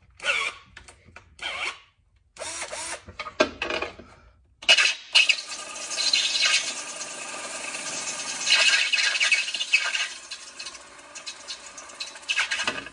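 Cordless drill with a stepper bit cutting a hole through a BMW E36 metal valve cover: a few short starts and stops in the first seconds, then from about five seconds in a steady grinding, rubbing run as the bit works through the metal, easing off near the end.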